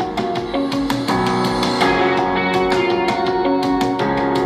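Music with a steady beat, played through a Samsung HW-Q70T soundbar.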